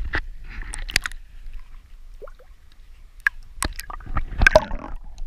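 River water sloshing and gurgling around a submerged action camera, muffled under a steady low rumble, with scattered sharp clicks and knocks that cluster about four seconds in.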